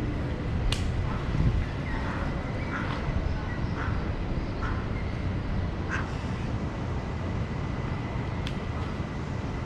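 Ducks quacking now and then, a few short calls spread through, over a steady low background rumble.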